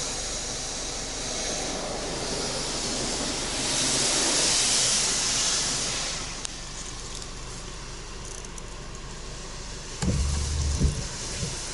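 Touchless car wash rinse arm spraying water over the car during the spot-free rinse, heard from inside the cabin: a steady hiss that swells loudest about four to six seconds in as the spray passes over the roof, then falls back. A few low thumps come near the end.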